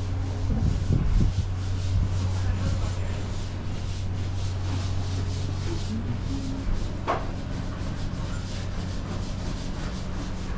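Footsteps and rubbing handling noise from a camera carried while walking, over a steady low hum. The steps stop about six seconds in, and a single sharp click sounds about a second later.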